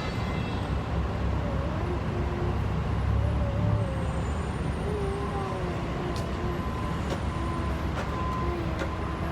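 Steady low rumble of a vehicle, with faint wavering tones above it.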